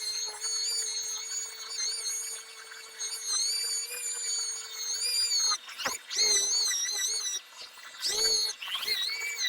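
Dual-action sander running with a steady whine whose pitch wavers slightly under changing pressure, sanding paint with 1,500-grit paper. Twice in the second half the whine breaks off and swoops in pitch as the sander slows and comes back up to speed.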